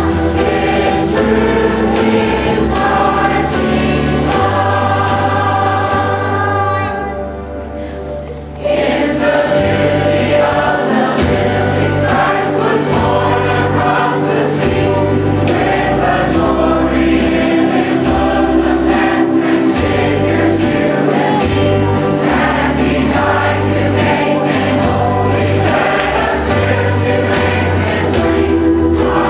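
Children's choir singing a patriotic song medley over instrumental accompaniment with a steady bass line. About seven seconds in the music softens briefly, then comes back at full level about a second and a half later.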